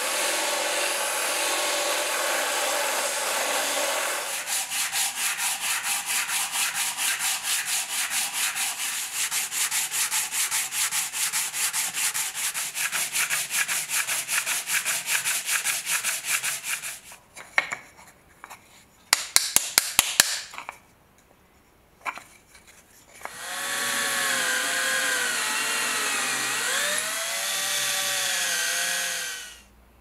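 A wooden knife-handle scale is rubbed back and forth by hand on sandpaper fixed to a block, in quick, even strokes. Before it comes a few seconds of a steady rush from a power belt sander grinding the wood. Afterwards there are a few sharp clicks, a short pause, and then several seconds of a machine running with a wavering whine.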